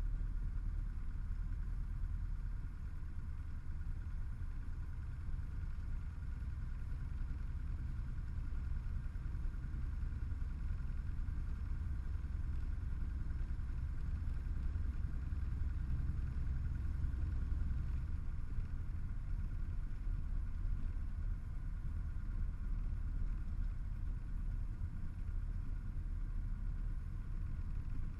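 The piston engine and propeller of a single-engine high-wing light aircraft running steadily, heard inside the cabin as a deep drone.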